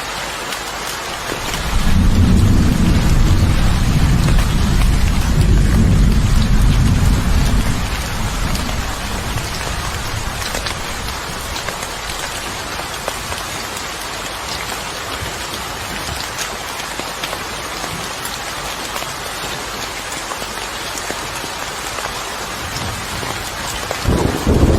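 Steady rain falling, with a long low roll of thunder starting about two seconds in and fading over several seconds. Another rumble begins near the end.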